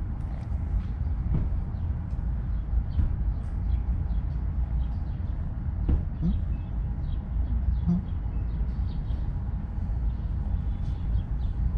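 Outdoor ambience: a steady low rumble with faint bird chirps scattered throughout.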